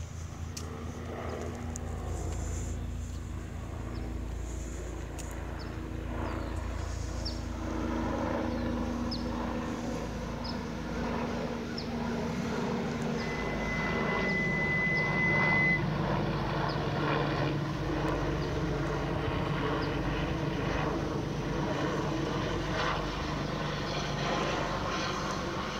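Airbus EC-145 medical helicopter approaching from a distance: a steady low drone of rotor and turbines that slowly grows louder. Around the middle, a high steady tone sounds for about two and a half seconds.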